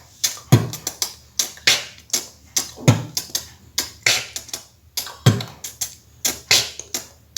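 Mouth beatboxing pattern: a deep kick-drum thump about every two and a half seconds, with quick clicking and hissy hi-hat strokes between them, including the reverse small hi-hat, a tongue slid along the roof of the mouth from back to front.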